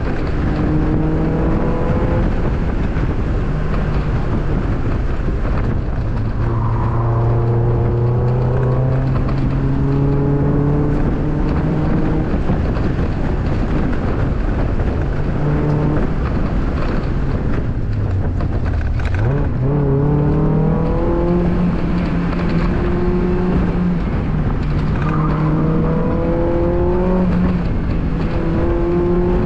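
Mazda Miata's 1.8-litre four-cylinder engine running hard through an autocross course, its pitch climbing and falling repeatedly with acceleration, braking and gear changes. About two-thirds of the way through, the revs sink low and then sweep sharply back up.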